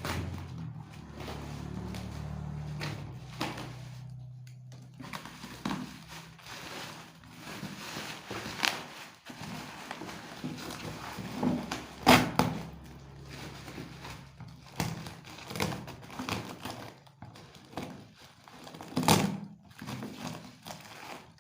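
Handling of a boxed 25cc top-handle chainsaw and its packaging: irregular knocks, thunks and clicks, with sharper knocks about halfway through and again near the end.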